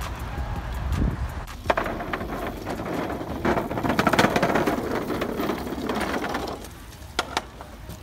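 BMX bikes riding on an asphalt pump track: a rushing tyre noise that swells through the middle, with a few sharp knocks, two of them close together near the end.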